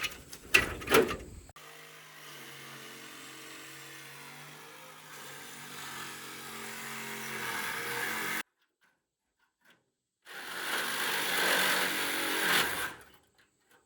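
A few sharp knocks, then a power saw running steadily, its cutting hiss building over several seconds. It cuts off abruptly. After a silent gap a saw cuts again, harsher and hissier, for a couple of seconds before stopping.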